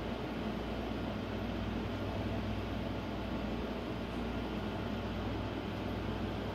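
Steady low hum with an even hiss, like a running fan or air-conditioning unit.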